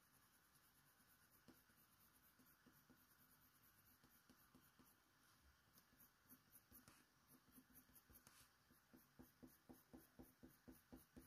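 Very faint scratching of a Faber-Castell Polychromos colour pencil stroking hot-press watercolour paper, mostly near silence, with quick short strokes, about four a second, in the last couple of seconds.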